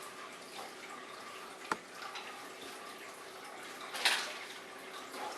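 Kitchen handling sounds over a faint steady hiss: one sharp click about a second and a half in, and a short, louder scrape or rustle about four seconds in, as ingredients are added for mixing.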